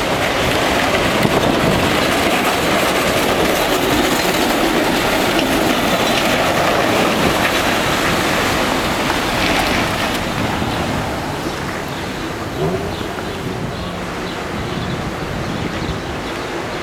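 Vintage tramcar rolling past on its rails, loudest over the first ten seconds, then quieter as it moves away.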